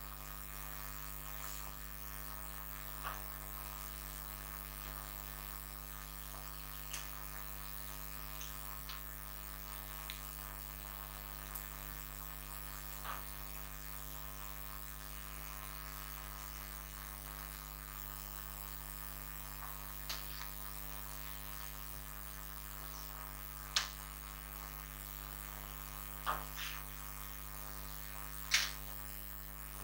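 Steady electrical mains hum over a background hiss, broken by a few faint scattered clicks and knocks; the sharpest come in the last few seconds.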